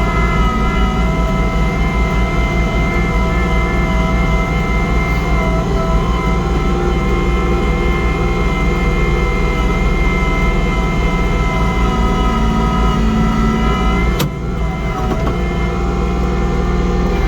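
Kubota compact tractor's diesel engine running steadily under load while driving a snowblower through heavy, wet snow, with a steady whine over the engine. About two-thirds of the way through there is a sharp click and the sound briefly dips before it picks back up.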